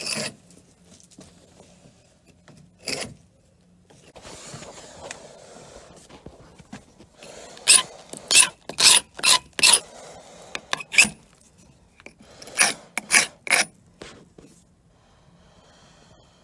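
Hand scraper working over the old painted wooden hull, scraping off flaking paint. A softer continuous rasp comes first, then a quick run of about eight hard strokes, a short pause and about four more.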